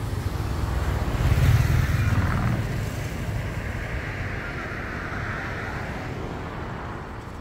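A road vehicle passing by: a low engine rumble that swells about a second and a half in, then fades away.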